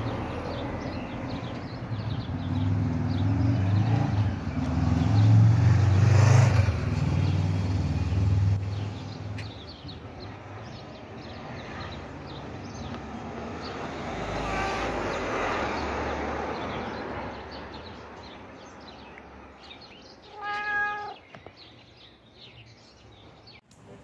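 A domestic cat meowing: a faint meow about fifteen seconds in and a clearer, short one about twenty seconds in, over a low rumble that is loudest in the first nine seconds.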